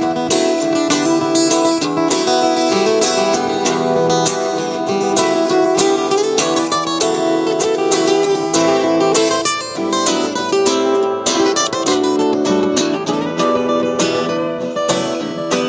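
Steel-string acoustic guitar played fingerstyle, a busy run of plucked notes and chords that carries on without a break.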